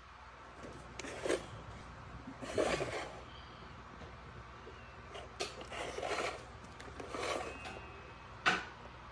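Handling noise: a few short rubs and scrapes at uneven intervals, with one sharp knock about eight and a half seconds in.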